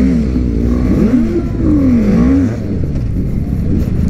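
Several superbike engines revving as the bikes ride off in a group. Engine notes rise and fall over the first couple of seconds over the steady low running of other bikes, then turn into a rougher, denser engine sound.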